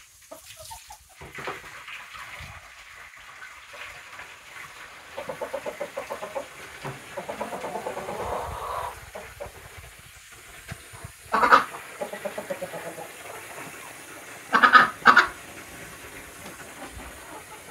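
Hens clucking in a coop, with a run of rapid clucks in the middle and a few louder calls, one about two-thirds through and two close together near the end. Under them, a garden hose hisses as it runs water into a plastic chicken waterer.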